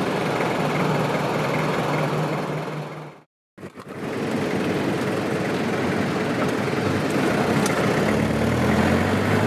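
Steady road and vehicle noise, cut off by a brief silence at an edit about three seconds in. After the cut, a vehicle driving, heard from inside the cab, with a steady engine hum coming up near the end.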